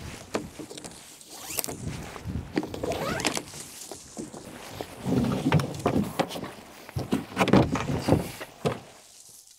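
Tie-down straps being unfastened and a Native Watercraft Ultimate 12 kayak shifting on a pickup's roof rack: a run of knocks, clicks and scraping, loudest about five seconds in and again near the end.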